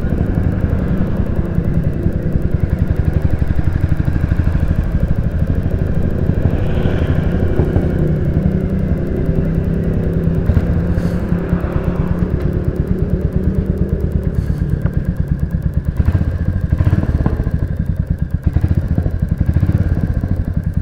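Royal Enfield Classic 350's single-cylinder engine running under way, its exhaust heard steadily. Toward the end it eases off and turns uneven, with the exhaust popping on the overrun.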